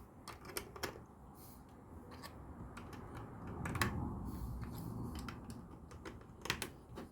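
LEGO plastic pieces being handled and pressed together, with a few sharp separate clicks and a low rustle of handling in the middle.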